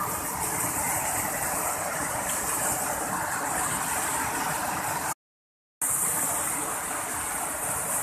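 Steady rush of cascading waterfalls, a dense even noise, broken by about half a second of total silence a little past halfway.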